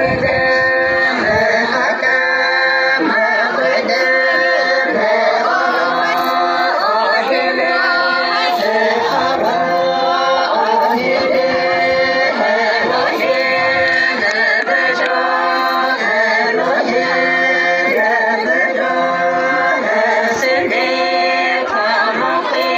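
A group of voices singing a folk song together, a short melodic phrase repeating over and over without a break.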